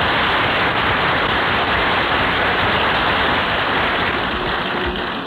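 Studio audience applauding, a steady dense clatter of clapping that begins to die away near the end.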